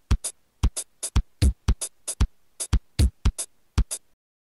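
Electronic drum-machine beat for a title intro: deep kick-drum hits between crisp high percussive hits. It cuts off suddenly about four seconds in.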